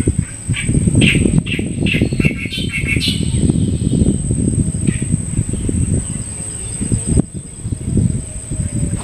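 Birds chirping a few times in the first three seconds, over a steady thin high whine. A loud, low rumble swells and fades beneath them.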